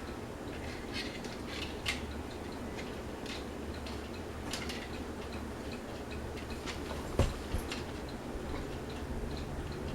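Fasco Gulf Stream ceiling fan running with a steady low motor hum, with irregular light ticks and clicks over it and one sharper, louder click about seven seconds in.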